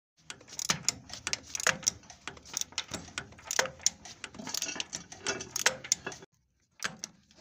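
Irregular metal clicks and taps of the timing bolt being worked in its timing hole in a Caterpillar 3512B engine's flywheel housing, with a short pause near the end.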